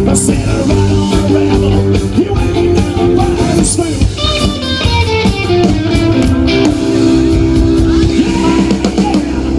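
Live rock and roll band playing, loud and continuous.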